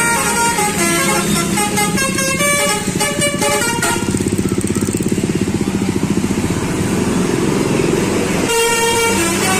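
Telolet multi-tone horn playing a tune of short stepped notes. For a few seconds in the middle the tune gives way to a fast, even pulsing, and the notes return near the end.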